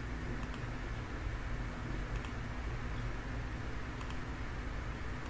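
Computer mouse button clicked three times, about two seconds apart, each a quick double tick of press and release. Underneath is a steady low hum.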